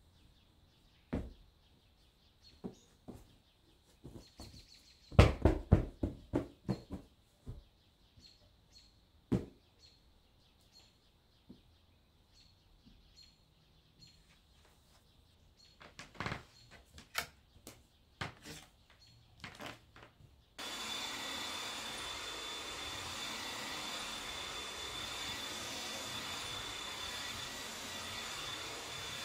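Scattered light knocks and clicks of objects being handled, some in quick clusters. About twenty seconds in, a steady rushing noise with a faint high whine starts abruptly and holds evenly.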